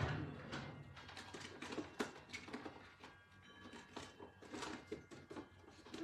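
Scattered light clicks, knocks and rustling of someone rummaging through craft supplies to look for a set of cutting dies, with a sharper knock at the start and another about two seconds in.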